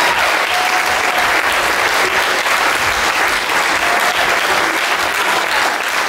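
Audience applauding, steady dense clapping from a seated crowd.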